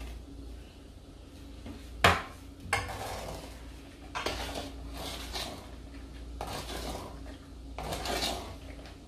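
A sharp metallic clink about two seconds in, then repeated scraping and clinking as a metal utensil stirs garlic into a pot of vinegar on the stove.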